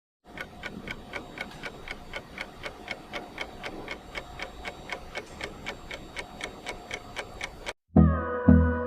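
Steady clock-like ticking, about four ticks a second, over faint sustained tones. It cuts off abruptly near the end, and loud music with a heavy beat starts straight after.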